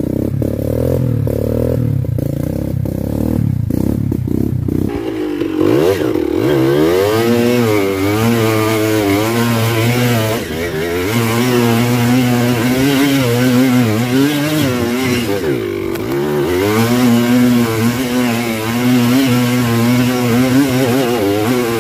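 Dirt bike engine running at a steady lower note for about five seconds, then revving, its pitch rising and falling again and again.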